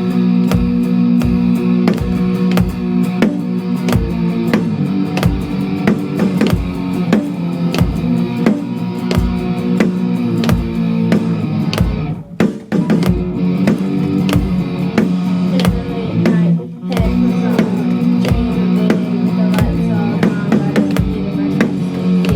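A live band playing a rock song: distorted electric guitar over a drum kit keeping a steady beat of about two hits a second. The playing drops out briefly twice, once around the middle and again about three-quarters through.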